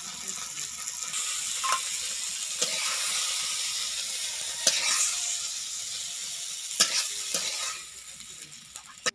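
Tomatoes and onions sizzling in hot mustard oil in an aluminium wok, with a metal spatula scraping and clicking against the pan several times as the fried tomato is scooped out. The sizzle dies down near the end.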